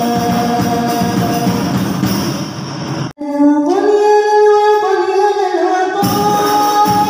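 Girls' voices singing Islamic sholawat to the beat of rebana frame drums. About three seconds in the sound cuts out briefly, then a single female voice sings on without the drums until the drumming comes back in at about six seconds.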